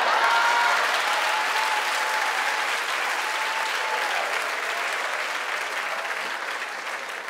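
Audience applauding after a punchline, loudest at the start and slowly dying away, with a long held whoop from one voice over it for the first few seconds.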